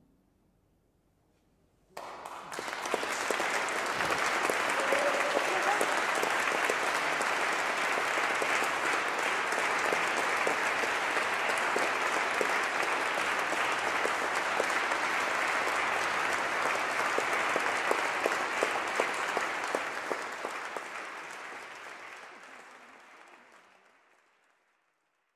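Audience applauding at the end of a piano recital. The applause breaks out suddenly about two seconds in, holds steady, then fades out near the end.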